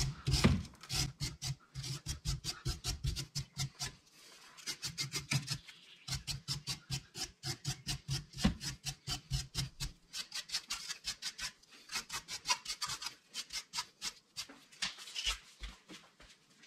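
A brush scrubbing dirt off a car's tie rod end in quick back-and-forth strokes, about four or five a second, in runs with short pauses, as the part is cleaned before being taken off.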